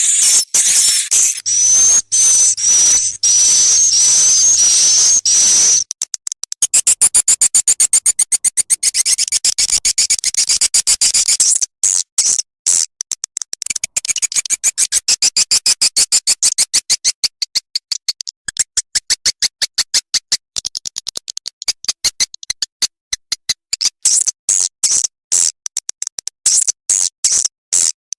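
Swiftlet call playback used as a lure for swiftlet nesting houses: high-pitched twittering chirps, then fast stuttering click-like trills repeated in rapid chopped bursts. It has an electronically edited, looped sound.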